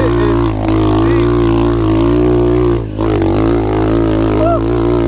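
SSR 125 pit bike's single-cylinder four-stroke engine running hard under throttle up a steep dirt hill climb. The engine dips briefly twice, slightly about half a second in and more clearly near three seconds, before pulling again.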